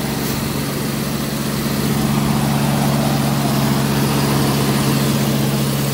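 1992 Jeep Cherokee XJ engine idling steadily at a fast idle of about 1500 rpm, exhaust run without a catalytic converter. The high idle is one the owner thinks may be normal for a cold engine that has not been started in three weeks.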